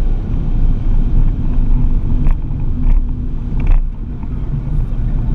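Ford Focus ST engine and road noise heard inside the cabin at track speed: a steady low drone. There are a few short knocks around the middle, and the level dips briefly about four seconds in.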